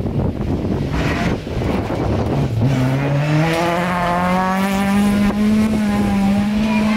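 Rally car engine at full throttle on a gravel stage: the engine note climbs for about a second and a half, then holds high and steady as the car passes.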